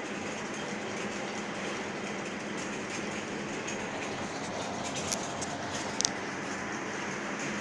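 Automatic eye-drop bottle machine running, a steady mechanical rattle over a low hum as its rotary star wheel indexes the plastic dropper bottles. Two sharp clicks stand out about five and six seconds in.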